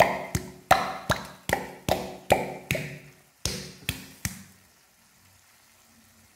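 Rhythmic tapping on a ketchup bottle held over a frying pan, about three sharp taps a second, shaking the ketchup out; the tapping stops a little past four seconds in.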